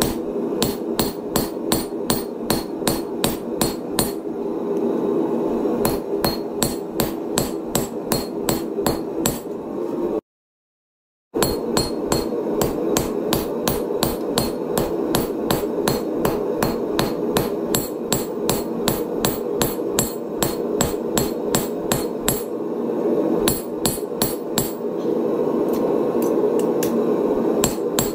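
Hand hammer striking red-hot steel on a chain-wrapped anvil, a steady run of blows at about three a second with short pauses, over a steady low hum. About ten seconds in the sound drops out to dead silence for about a second.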